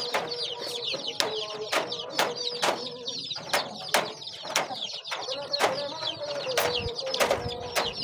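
Young chicks peeping continuously in quick, high chirps, over sharp clicks from galvanised wire mesh being worked against a wooden frame, roughly two a second and irregular.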